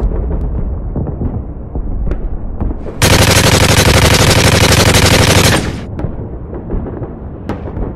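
A long burst of rapid machine-gun fire, about two and a half seconds of fast, continuous shots starting about three seconds in. Before and after it there is a low rumbling battle background.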